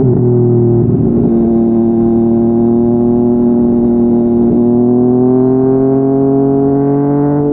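Yamaha MT-09's three-cylinder engine through a Yoshimura R55 slip-on exhaust, running at a steady throttle while riding. Its pitch holds nearly level, then rises slowly over the last couple of seconds as it gathers revs.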